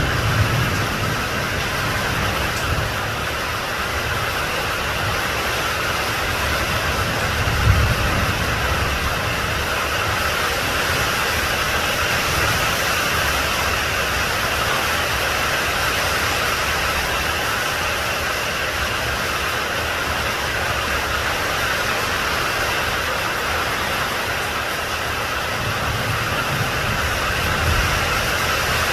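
Steady rain, an even hiss, with a few low rumbles swelling underneath about eight seconds in and again near the end.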